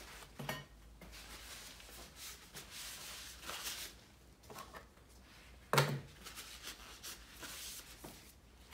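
Close handling noise: a paper towel rustled in gloved hands, with two knocks, the louder one about six seconds in.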